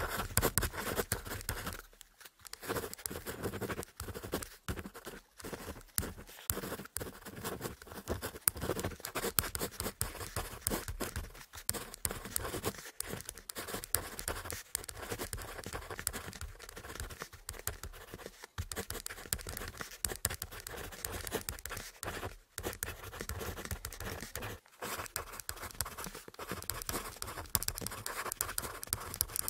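Ballpoint pen writing on paper: irregular scratchy strokes in quick runs, broken by short pauses as the pen lifts.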